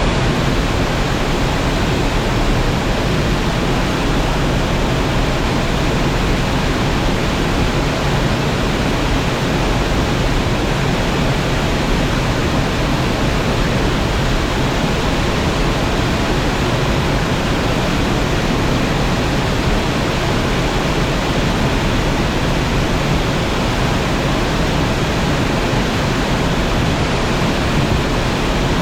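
Waterfall crashing into its pool: a loud, steady, unbroken rush of falling water with deep low rumble and no change throughout.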